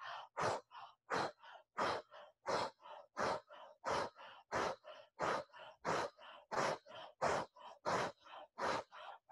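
A woman breathing rapidly and forcefully through the mouth in a quick energizing breathwork pattern. A loud breath comes about every two-thirds of a second, each followed by a softer one, in a steady rhythm.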